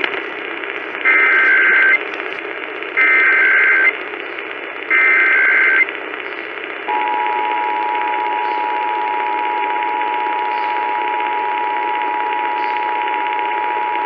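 Emergency Alert System Required Monthly Test heard over AM radio: three short bursts of the digital SAME header, each under a second and a second apart, then the steady two-tone EAS attention signal, which starts about seven seconds in and holds to the end. Constant static hiss of AM reception lies underneath.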